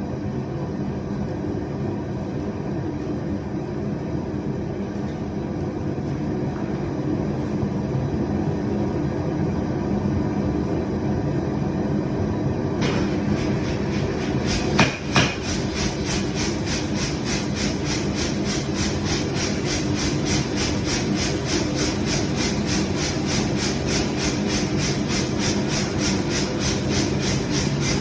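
Steady drone of shop machinery. About halfway through come two loud strikes, then fast, even blows about three a second, a powered forging hammer working the iron.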